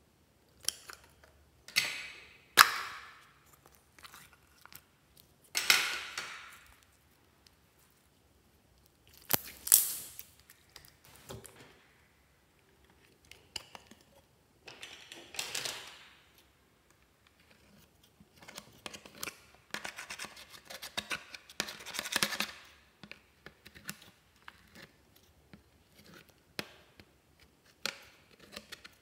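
Scissor tips scraping and crumbling pressed eyeshadow out of a makeup palette, in short scratchy bursts with quiet pauses between.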